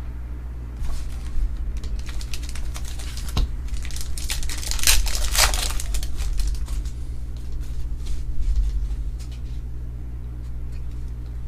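Trading cards being handled at a table: irregular crinkling, rustling and light clicks, busiest around the middle, over a steady low electrical hum.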